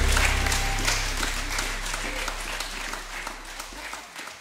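Audience applauding as the band's last low note rings away in the first second; the clapping fades out steadily.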